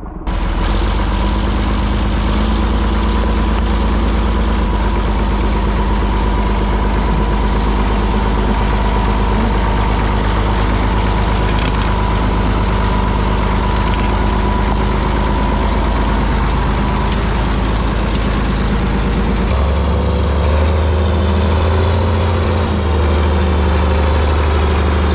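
Caterpillar 977 crawler loader's diesel engine running steadily and loudly. About twenty seconds in, its low note shifts up.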